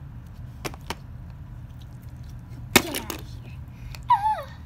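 Small plastic toys being handled on a tabletop: two light clicks, then a sharp knock a little under three seconds in, and a short falling vocal squeal near the end.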